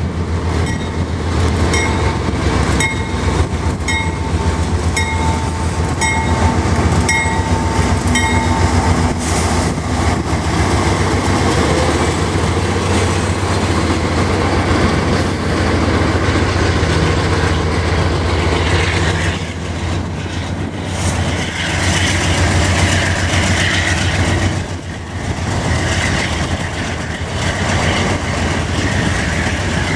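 CSX freight train passing close by: diesel locomotives rumbling past, followed by tank cars with their wheels clacking over the rail joints. A bell rings in regular strokes about once a second for the first nine seconds or so.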